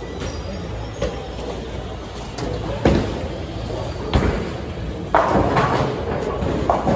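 Bowling alley noise: a steady low rumble of rolling bowling balls broken by sharp crashes of balls into pins, three of them about three, four and five seconds in, the last followed by about a second of pin clatter.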